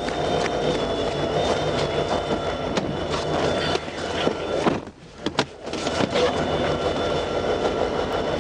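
Train at the crossing: a steady rumbling noise with scattered clicks and knocks, dropping away briefly about five seconds in.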